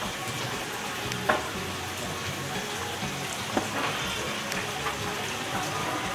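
Food frying in hot oil, a steady crackling sizzle, with a couple of faint clicks.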